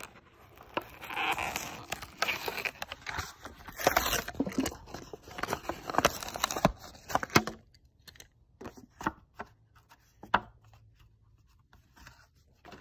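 A Hot Wheels short-card blister pack being torn open by hand: the cardboard backing rips and the plastic blister crackles for several seconds. Then come a few scattered light taps and clicks as the die-cast car is handled.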